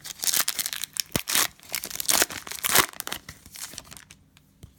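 Cellophane wrapper of a trading-card cello pack being torn open and crumpled: a run of crinkly tearing and rustling that dies down in the last second.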